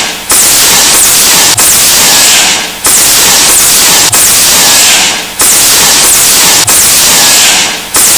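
Loud static-like hiss that cuts out briefly and comes back about every second and a quarter.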